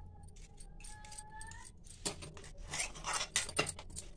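Wire whisk beating thick rice batter in a steel bowl, starting about halfway through: irregular clicks and scrapes of the wires against the metal.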